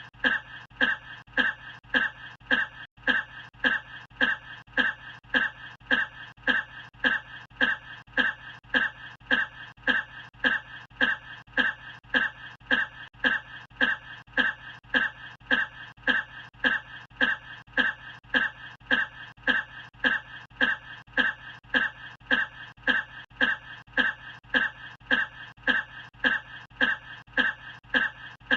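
A single short cough looped over and over, repeating in an even, identical rhythm a little over twice a second, over a steady low hum.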